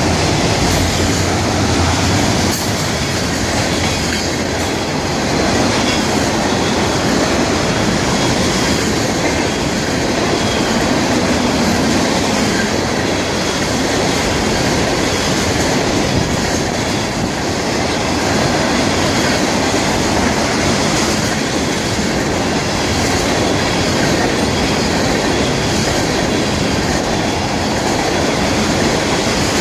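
A freight train's autorack and tank cars rolling past close by: a loud, steady noise of steel wheels running on the rails.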